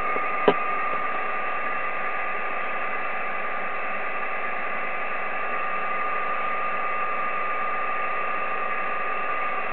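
Receiver hiss from an Icom IC-7300 transceiver on 10 metres, 28.325 MHz upper sideband, with no station coming through, and a steady heterodyne whistle over it. A single click about half a second in. The called station is not being heard.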